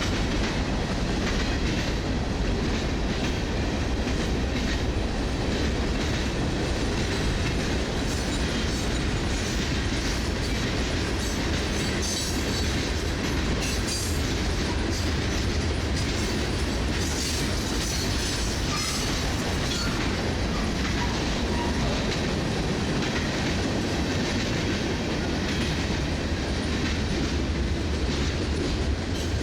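Freight cars of a CSX manifest train rolling past at steady volume, wheels clattering over the rail joints, with stretches of high-pitched wheel noise about halfway through.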